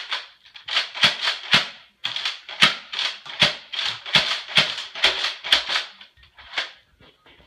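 Nerf Zombie Strike Doominator pump-action blaster slam-fired in rapid succession: sharp plastic clacks of the pump and dart shots, about three a second, stopping a little before the end.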